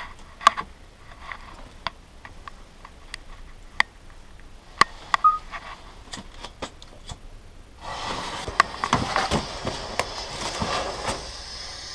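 Scattered clicks and gritty scrapes, like footsteps and handling in a brick bunker. About eight seconds in, a steady crackling hiss starts up: a lit firework burning just before it takes off.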